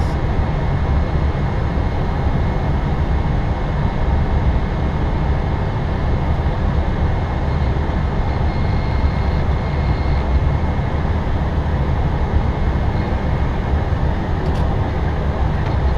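Airbus A320 flight deck noise during the descent: a steady rush of airflow and air conditioning, heaviest in the low end, with a faint steady high tone.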